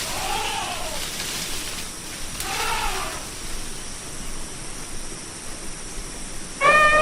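Elephant calls: two short pitched squeals that rise and fall, one at the start and one about two and a half seconds in, over a steady hiss, then a loud, sustained trumpet that breaks in near the end.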